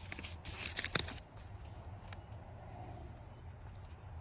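Paper invoice rustling and crinkling as it is handled, loudest in the first second, then a faint steady low hum with a few small clicks.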